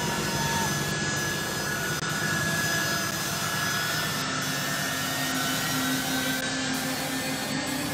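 Jet engines of a U.S. Air Force C-17 Globemaster III running as the transport taxis, a steady rushing noise with a thin high whine over it.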